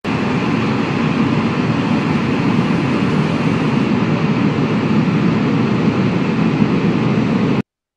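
Steady low rushing noise from the sound track of an animated closing title, starting abruptly and cutting off suddenly near the end.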